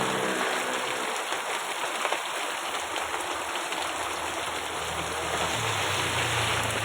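Steady heavy rain pouring down and pattering on surfaces, an even hiss with fine drop ticks throughout.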